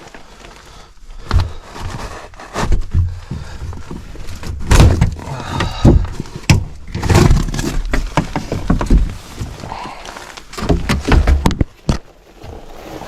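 Irregular knocks, thuds and rattles of sheet metal as the air handler's access panel is worked loose and handled.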